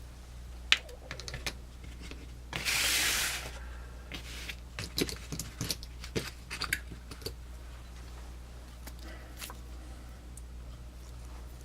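Light clicks and taps of small Swiss Army knives being handled, with a sharp click about a second in and a brief rustle about three seconds in.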